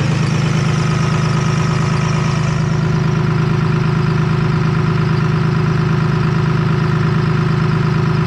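Cummins turbo-diesel engine idling steadily, heard close up in the engine bay, with an even, fast diesel clatter.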